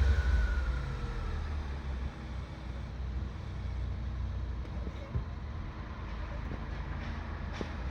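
Suzuki Jimny JB23W's engine running with a high, wavering squeal ("kyuru-kyuru") that fades out about a second in, then the engine idles steadily with a lower rumble. The squeal is the abnormal noise that the owner gets when the clutch is disengaged.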